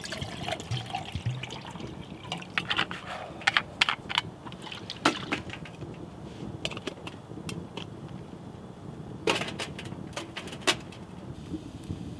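Raindrops and drips hitting the tent fabric: irregular sharp taps over a steady hiss, with a quick cluster of taps near the end.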